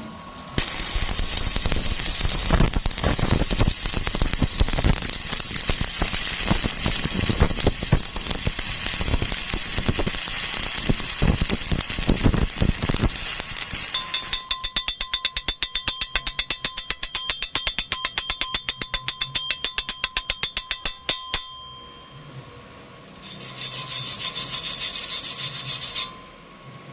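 Metalworking on steel: a long stretch of dense crackling with sharp clicks, then a fast, even run of scraping strokes, about five a second, that stops suddenly, and near the end a few seconds of hiss.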